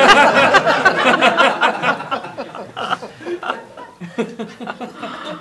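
Audience laughing at a stand-up joke, loudest in the first two seconds and then dying away.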